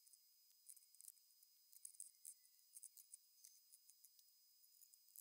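Near silence, with faint scattered high-pitched ticks.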